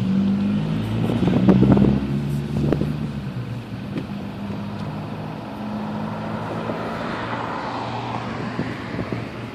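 Nissan Pulsar GTI-R's turbocharged four-cylinder running through an open exhaust cutout as the car accelerates away. It is loudest about two seconds in, with a few sharp cracks, then fades as the car pulls into the distance.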